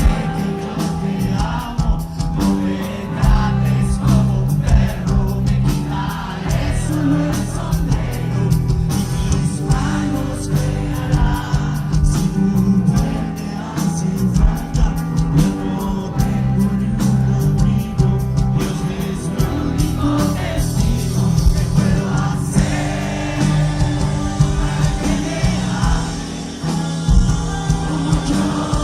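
A rock band playing live with a lead singer, drums keeping a steady beat under bass and guitars.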